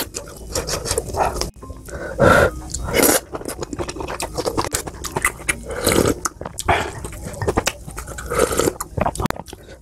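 Close-miked eating: a person slurping spicy kimchi-stew broth from a wooden spoon and chewing. Several loud, breathy slurps come a second or two apart, with smaller mouth noises between them.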